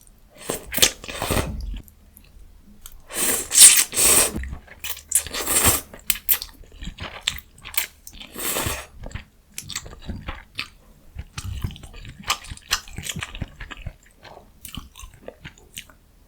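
Close-miked eating sounds of a person biting and chewing food, a run of wet mouth clicks and crunches. Several louder noisy stretches of about half a second to a second stand out, the loudest about four seconds in.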